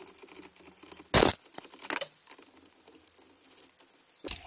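Hand ratchet clicking rapidly as a door-trim bolt is turned, then a loud sharp knock a little over a second in and a smaller one about a second later.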